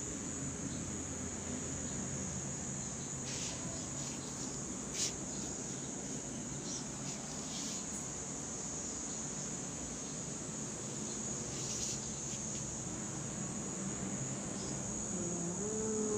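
Insects trilling steadily at a high pitch, with a few soft clicks, the sharpest about five seconds in.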